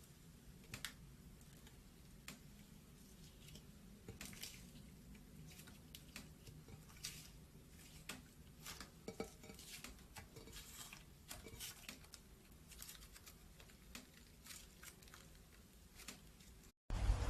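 Slime being squished and worked by hand: faint, scattered clicks and soft squelches. The sound cuts out briefly near the end, then louder steady noise starts.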